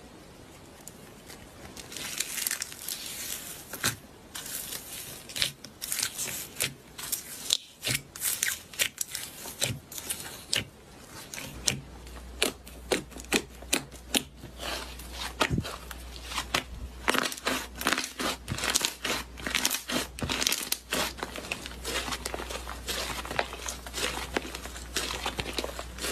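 Slime being squeezed and worked by hand, giving a dense, irregular run of sharp crackling pops and clicks that starts about two seconds in. A low steady hum joins about halfway through.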